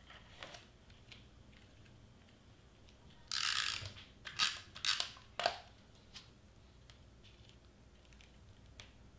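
Handheld adhesive tape runner drawn across a cardstock piece: one longer rasping stroke about three seconds in, then three or four quick short strokes, with faint paper handling ticks around them.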